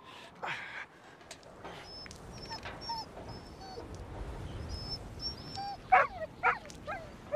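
A dog whimpering, with two louder whines about six seconds in, over a low rumble and faint high chirping.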